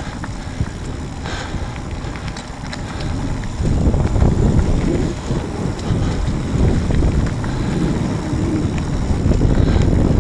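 Wind buffeting an action camera's microphone and mountain bike tyres rumbling over a dirt forest trail while riding downhill, the noise getting louder about four seconds in.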